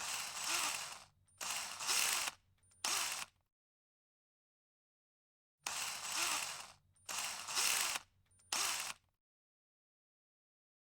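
Mechanical noise in three bursts, long, medium and short, separated by dead silence; the same three-burst group comes round twice, about five and a half seconds apart.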